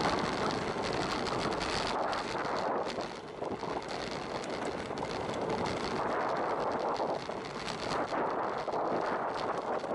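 Wind buffeting the microphone of a bicycle-mounted camera while riding along a road, with tyre and road noise and frequent short knocks and rattles from the bike.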